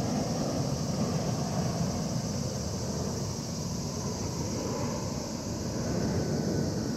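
A steady, distant engine-like rumble that fades slowly, with a faint high hiss above it.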